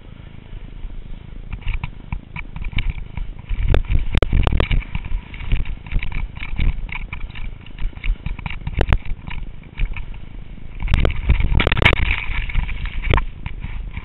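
Skis scraping and chattering over snow while the skier descends, with wind buffeting the helmet camera's microphone: a rough, crackling rush that swells about four seconds in and again near the end.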